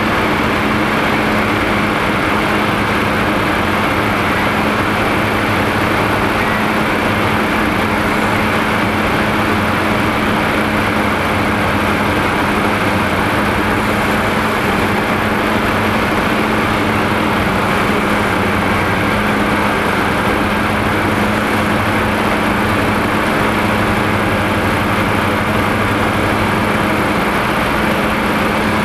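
Twin-engine Diamond DA42's engines and propellers droning steadily in cruise, heard inside the cabin: a constant loud hum with a steady low tone and no change in pitch.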